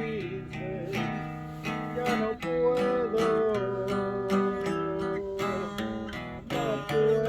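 Music: acoustic guitars strumming a steady rhythm under a lead melody that slides between notes, with no voice in this stretch.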